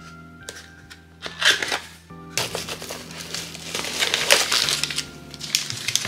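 Cardboard box flaps and plastic packaging rustling and crinkling as a fan retail box is opened: a short crinkle about a second and a half in, then steady crinkling for a couple of seconds. Soft background music plays throughout.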